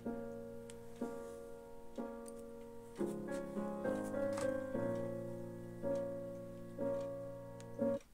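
Slow piano music from a television's built-in speakers, a note or chord struck about once a second, a little busier midway; it cuts off abruptly at the end.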